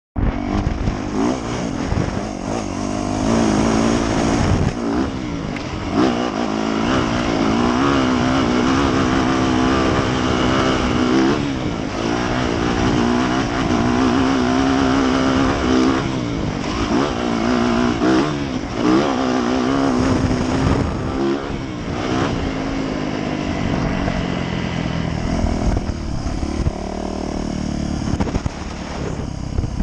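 Yamaha YZ450F's 450 cc single-cylinder four-stroke engine pulling under load while the dirt bike is ridden, revving up and dropping back again and again as the throttle is worked and gears change.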